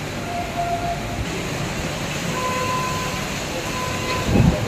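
Heavy rain and gusty storm wind making a steady hiss, with a brief low rumble near the end.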